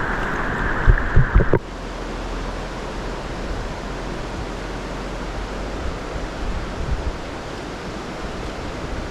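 Mountain stream water rushing steadily. In the first second and a half the rush is louder, with a few low thumps; then it changes suddenly to a steady, slightly quieter rush.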